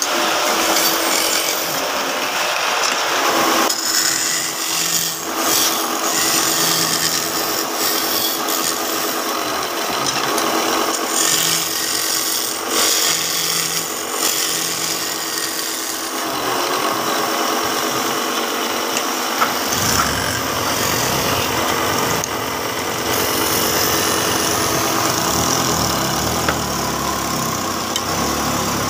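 Belt-driven wood lathe running, with a steady motor hum under the scraping rasp of a hand chisel cutting into a spinning wooden cot leg. The rasp rises and falls as the chisel is pressed in and eased off.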